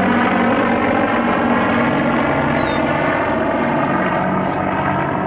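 Avro Lancaster's four piston engines droning as it passes low overhead: a steady, deep, many-toned drone that grows slightly fainter near the end.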